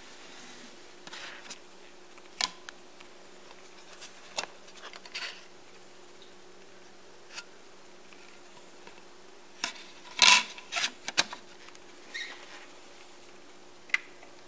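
Scattered clicks and plastic rattles as a DVD case is handled and opened and a disc is taken out and laid in the open tray of a DVD player. The loudest cluster of clicks comes about ten seconds in, over a faint steady hum.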